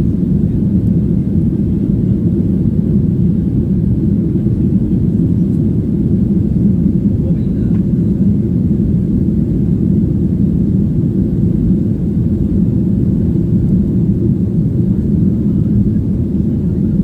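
Steady low rumble of engine and airflow noise inside the cabin of a Boeing 737-900 jet airliner.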